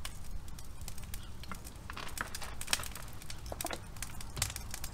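Irregular light crackling and clicking as a plastic bottle of vegetable oil is squeezed and handled.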